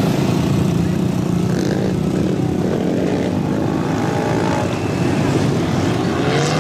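Engine of an old open-top Jeep running steadily as it crawls through deep mud, with a rise in pitch near the end.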